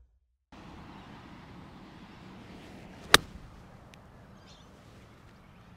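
A single crisp click of a sand wedge striking a golf ball on a pitch shot, about three seconds in, over faint outdoor background noise.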